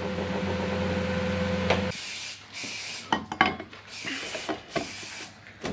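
A steady hum cuts off about two seconds in, then come four short scraping, rubbing strokes and a few sharp clicks: parts of a 1UZ throttle body being handled and worked on a bench.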